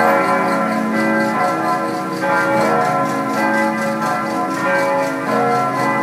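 Church bells pealing, several bells struck in turn so that their strokes overlap and ring on together.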